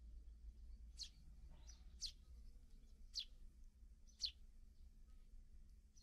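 Eurasian tree sparrows chirping: four short, high chirps, each dropping quickly in pitch, spaced about a second apart, over a faint low hum.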